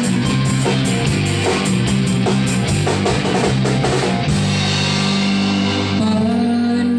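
A band playing an instrumental passage with no singing: a drum kit hitting busily over steady bass and electric guitar.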